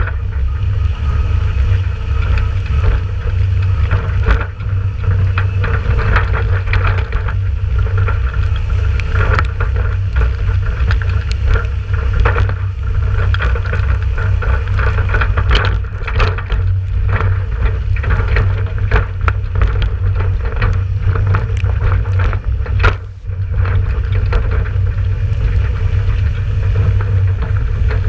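Ford 7000 tractor's four-cylinder turbo diesel engine running steadily on the road, with a heavy low rumble, frequent sharp clicks and knocks, and a brief dip in level late on.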